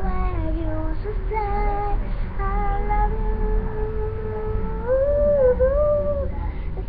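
A high voice singing slow, long-held notes, one note held steadily for a couple of seconds, then a jump to a higher, wavering note about five seconds in, over a steady low rumble.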